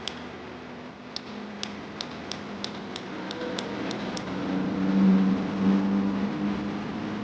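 A run of sharp clicks, about three a second, followed by a steady motor hum that swells to its loudest about five seconds in and then eases off.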